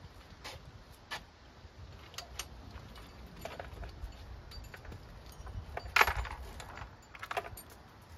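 Scattered metal clinks and clanks from hand work on parts in a car's engine bay, about eight short knocks, the loudest about six seconds in.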